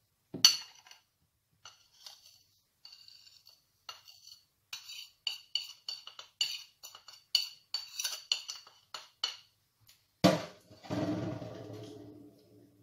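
A metal spoon clinking and tapping against a ceramic plate and a plastic blender cup as sugar, baking powder and cinnamon are spooned into a NutriBullet cup. The clinks ring with a bright tone and come quickly, two or three a second, in the middle. Near the end there is one louder clatter that rings on for about two seconds.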